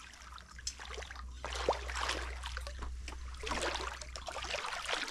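Shallow water splashing and sloshing in irregular bursts as a mud crab is worked out of a mangrove pool with a metal crab hook, over a steady low rumble.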